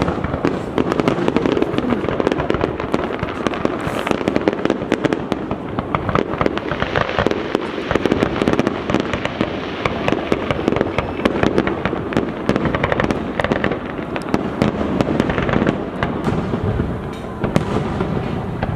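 Fireworks going off: a dense, continuous crackle of many small sharp pops, keeping up without a break.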